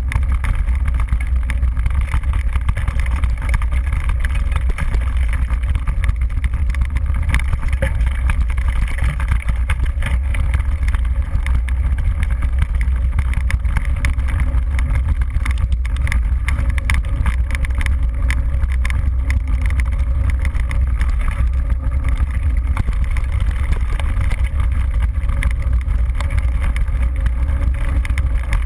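Wind buffeting and ride vibration on a GoPro HD mounted on a mountain bike riding a rough dirt track: a loud, steady low rumble with constant small knocks and rattles from the bumps.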